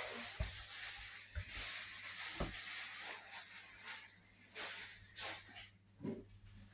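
Handling noise from a handheld phone being carried through a room: soft thumps about once a second in the first few seconds, then scattered rustles and knocks, over a steady hiss.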